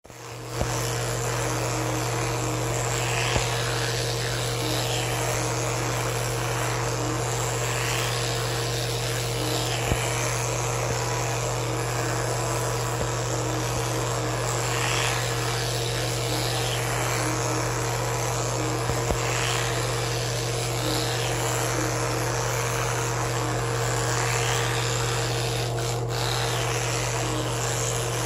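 Electric toothbrush running with a steady low hum, switching on just under a second in.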